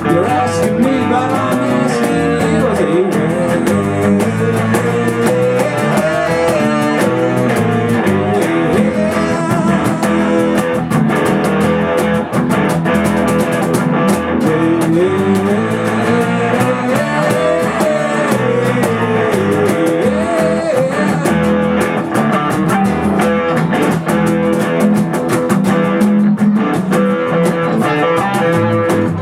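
Live blues-rock band playing an instrumental break, with a guitar taking a lead line of bending notes over a steady accompaniment.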